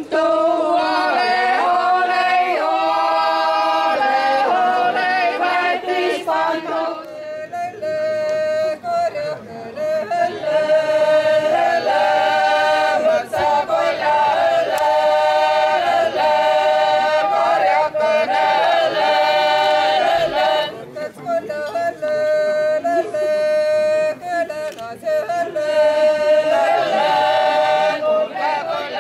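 Seto leelo: a choir singing traditional polyphonic song a cappella, in phrases of long held notes, with a high voice held above the rest.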